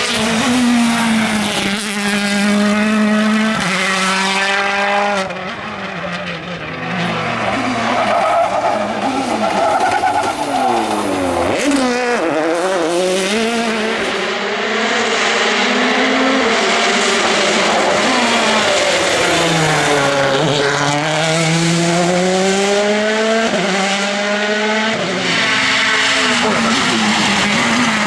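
2014 World Rally Cars' 1.6-litre turbocharged four-cylinder engines running hard through a tarmac stage. The pitch climbs in steps through quick upshifts, then drops on braking and downshifts and climbs again, several times over.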